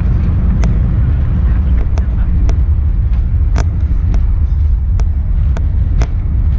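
Airbus A380 rolling out on the runway after touchdown with its spoilers raised, heard from inside the cabin: a loud, steady low rumble. Sharp clicks and knocks come through it unevenly, roughly two a second.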